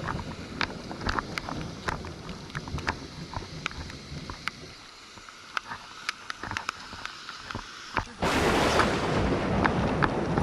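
Rain falling, with single drops ticking close by over a low rumble of thunder that dies away in the first half. About eight seconds in, a much louder steady rushing noise starts suddenly.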